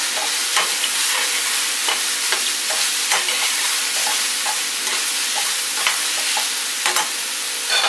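Mushrooms, red onion and garlic sizzling in olive oil in a frying pan while being stirred: a steady sizzle with frequent short clicks and scrapes of the utensil against the pan.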